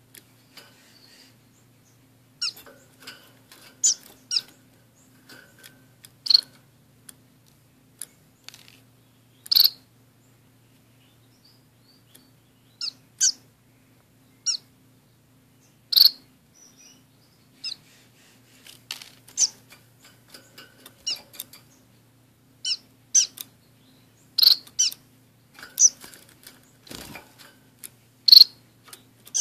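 Caged orange-cheeked waxbills and a society finch calling: short, sharp, high chirps, single or in quick little clusters, every second or two.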